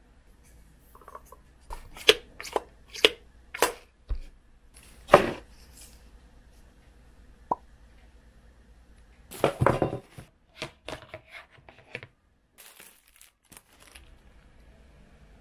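Plastic retail packaging crinkling and rustling as small store-bought items are handled, in separate short, sharp strokes with a denser flurry about ten seconds in.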